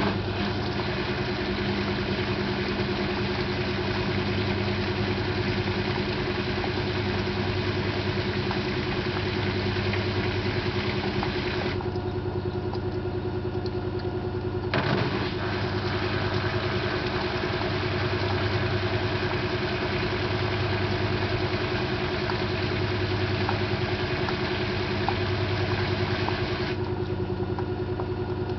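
LG 12B8ND washing machine spinning: a steady motor hum with a fast low pulsing and a few sharp clicks. The clicking is a foreign noise from the lower right side of the machine that comes during spin only with laundry in the drum, never with the drum empty.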